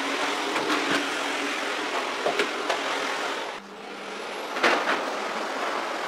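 Bagless canister vacuum cleaner running steadily as its floor nozzle is worked over the floor, with a few sharp knocks. The sound dips briefly a little past halfway, then carries on.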